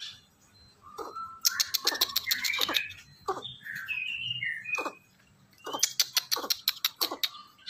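Albino greater coucal giving rapid clicking calls mixed with short chirps and rising whistles, in bursts: one from about one to five seconds in and another near the end.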